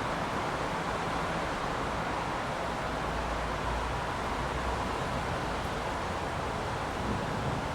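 Steady heavy rain on a city street, an even dense hiss, with a low rumble underneath that swells a little in the middle.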